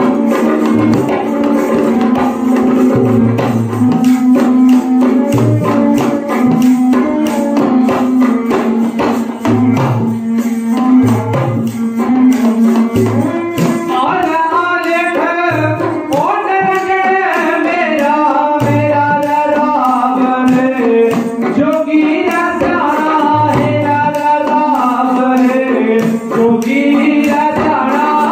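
Folk devotional music: a bowed sarangi plays a melody over a regular beat on a small hand-held hourglass drum (dhadd). About fourteen seconds in, a man starts singing over them.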